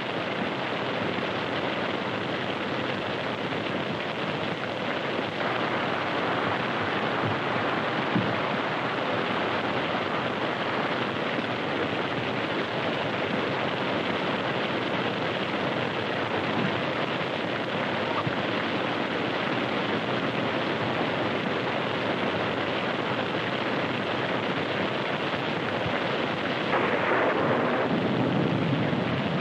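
Storm effect on an old film soundtrack: a steady rush of heavy, wind-driven rain, swelling a little near the end.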